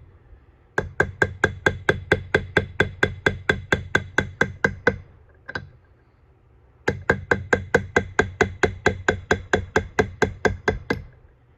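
A hammer rapidly tapping a steel punch, about five light blows a second, in two long runs with a brief pause and a single tap between them. The blows are driving a brazed, threaded insert round to unscrew it from the lathe's compound casting.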